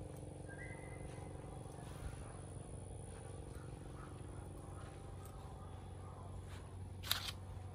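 A steady low mechanical hum, with a short high chirp about half a second in and a single sharp click about seven seconds in.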